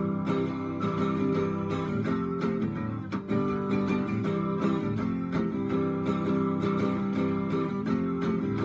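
Instrumental guitar break with chords strummed in a steady rhythm and no singing.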